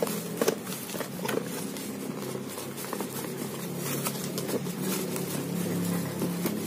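Bubble wrap crinkling and cardboard scraping as a bubble-wrapped portable speaker is worked out of a tight-fitting cardboard box. Sharper crackles come in the first second or so, over a steady low hum.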